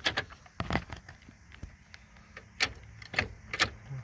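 About ten sharp, irregular metal clicks and clinks from tightening down the loose nut on the shift-linkage bolt of a Chevy Cruze's six-speed manual transmission, over a faint steady low hum. The nut had been turning on its bolt, which left the gearbox hard to shift and stuck in gear.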